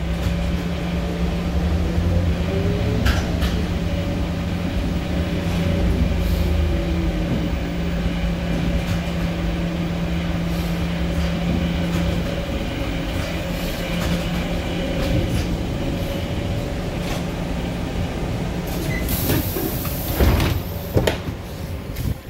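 ZiU trolleybus cabin while riding: the electric traction motor whines, rising and falling, over a steady low hum that stops about halfway through. Near the end a short sharp hiss of air comes as the pneumatic doors open, followed by a few loud knocks and clatter.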